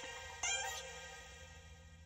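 Background music: a sustained pitched note with one new note struck about half a second in, then fading away.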